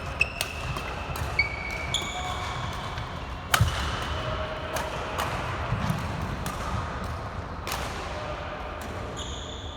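Badminton rally: sharp racket strikes on the shuttlecock about once a second, the loudest about three and a half seconds in, with short sneaker squeaks on the court floor.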